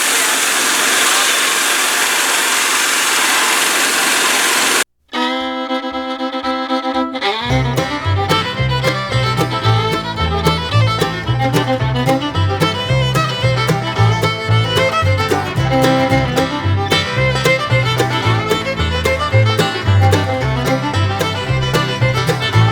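A steady rushing machine noise cuts off abruptly about five seconds in. Fiddle music in a bluegrass style follows, opening on held notes, with a rhythmic bass line joining a couple of seconds later.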